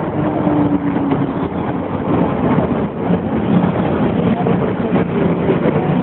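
Steady street traffic noise with the hum of running vehicle engines.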